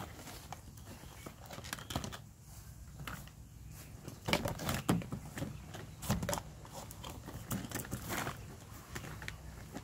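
Plastic toy kitchenware knocking and clattering as a small child handles it, in scattered light clicks that come thickest a few seconds in.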